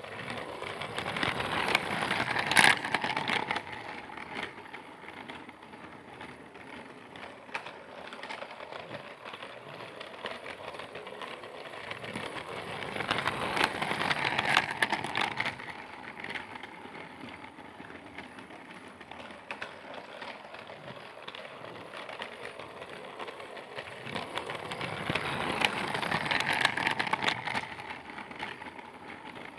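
Small Percy toy train running round a track loop with a rattling, clicking roll. It swells loud three times, about every twelve seconds, as it passes close, and fades between passes.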